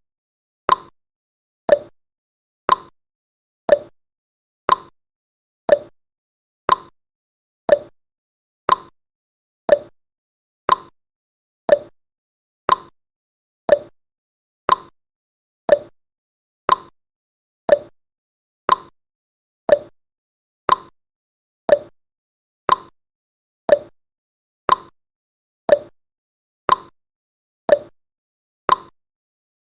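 Countdown timer's tick-tock sound effect: a sharp click once a second, alternating between a higher tick and a lower tock, each dying away quickly.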